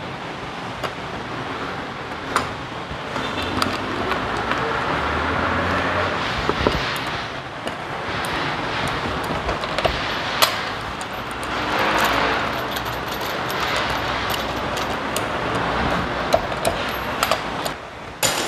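Scattered metallic clicks and taps as a car's front wheel is handled, over a steady hum of road traffic.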